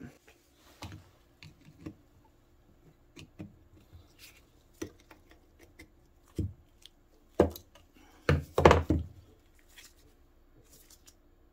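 Snap ring pliers working a snap ring out of a snowmobile suspension bogie wheel's bearing bore: scattered small metallic clicks and taps, with a few louder knocks a little past halfway.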